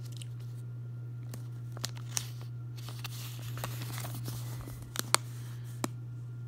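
A paper instruction leaflet handled, giving a few brief crisp rustles and clicks, the loudest near the end, over a steady low hum.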